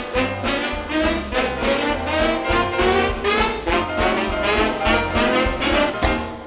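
Big band playing jazz live: brass section with trumpets and trombones over piano, bass and drums, with a steady swinging beat. The music falls away near the end.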